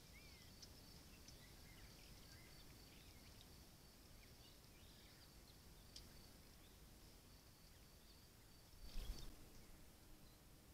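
Near silence: faint outdoor ambience with a few distant bird chirps over a steady thin high whine. A short louder burst of noise comes about nine seconds in.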